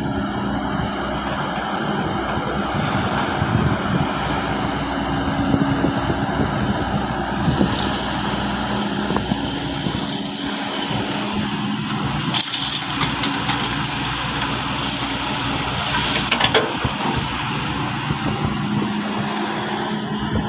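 Excavator running steadily, its engine a constant hum. A loud high hiss comes in about a third of the way through for several seconds, and a few sharp knocks sound near the middle.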